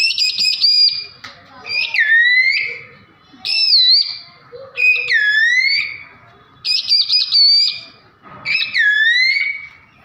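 A man mimicking bird calls with his voice: about six high whistled phrases with short pauses between them, each a quick warble or a swoop down and back up in pitch.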